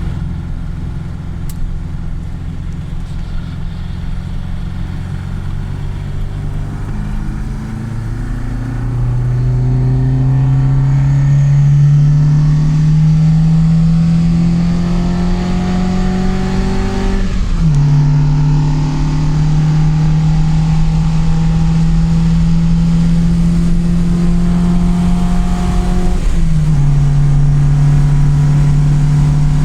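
1973 Alfa Romeo GT Junior's 1.6-litre twin-cam four-cylinder engine, steady for the first several seconds, then pulling with a slowly rising note. The pitch drops sharply twice at upshifts, and the note climbs again after each.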